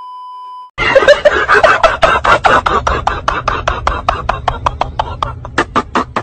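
A steady test-tone beep under a second long, then a very loud cartoon meme clip: a rapid run of sharp pulses, about five a second and spacing out toward the end, over a low hum.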